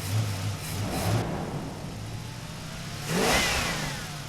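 Car engine revving, with a louder rush about three seconds in whose pitch slides like a car going past.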